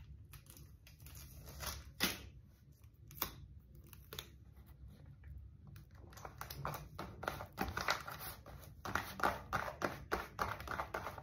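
Faint rustling and crinkling of paper handled by hand as a small paper surprise packet is opened, a few scattered rustles at first, then denser crinkling from about halfway through.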